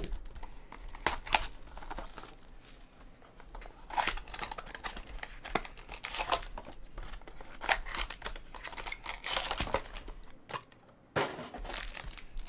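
Plastic shrink-wrap crinkling and tearing as a Topps Triple Threads trading-card box is unwrapped and opened, then a foil pack crinkling as it is handled. There is a short lull shortly before the end, after which the foil crinkling is louder.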